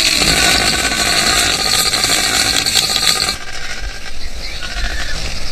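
Male magnificent frigatebird's courtship display: a rapid, buzzy drumming rattle made with the inflated red throat pouch, easing off a little past halfway.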